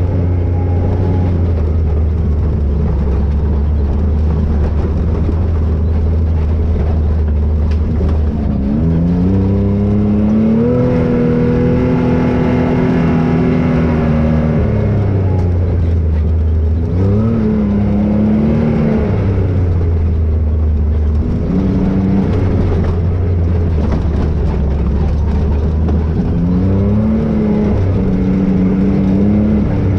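Can-Am Maverick X rc 1000 side-by-side's Rotax V-twin engine running under way, revving up and easing off with the throttle. Its pitch rises about nine seconds in and holds, drops back around sixteen seconds, then rises again briefly three more times.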